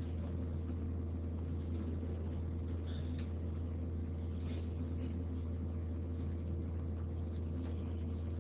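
Classroom room tone: a steady low hum with faint scattered rustles and small clicks.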